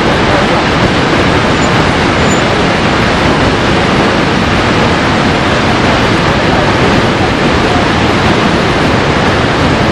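Steady, loud rush of falling water from a waterfall, an even noise with no breaks or changes.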